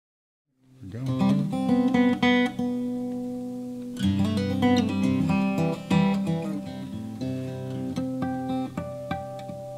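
Acoustic guitar playing a song's instrumental intro, starting out of silence just under a second in: picked notes and chords left to ring, with strong new strokes about a second in and again about four seconds in.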